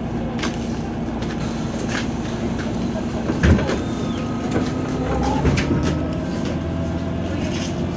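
MAZ 203.065 city bus heard from inside the cabin while on the move: its diesel engine drones steadily over rattles and clicks from the body, with one heavy thump about three and a half seconds in.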